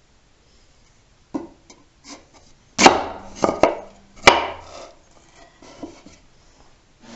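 Wooden boards knocking against each other and the wooden benchtop as bracket pieces are handled and fitted together: a series of sharp knocks, the two loudest about three and four seconds in, with lighter taps and rubbing between.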